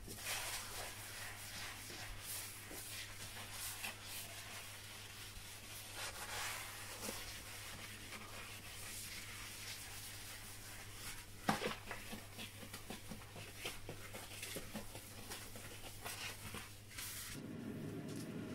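Faint rubbing and swishing of a wet sponge wiping a soapy glass-ceramic cooktop, in uneven strokes, with one sharper scrape about eleven seconds in.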